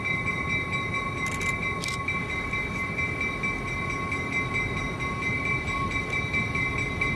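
EMD GP38-2 diesel locomotive, with a 16-cylinder two-stroke engine, running at low speed as it moves toward the listener while switching cars, giving a steady diesel rumble. A steady high-pitched whine sits over it throughout, and there are two short hisses about a second and a half in.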